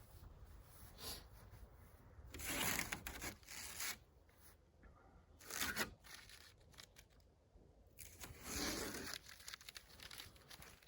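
Three short rasping sounds of hand work at the truck's lights, each about a second long, over faint room hum.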